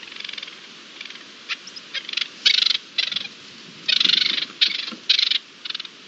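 Partridge calling: a run of short, harsh rasping calls at irregular spacing, the longest about half a second, over a steady outdoor hiss.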